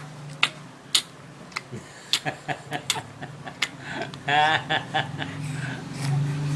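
A six-month-old baby sucking and smacking on a piece of apple: a run of short wet mouth clicks. About four seconds in, a brief high-pitched, wavering baby giggle or squeal.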